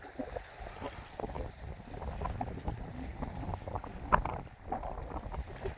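Wind buffeting the microphone aboard a small fishing boat at sea, over a rough low rumble, with scattered light knocks and clicks; one sharper knock comes about four seconds in.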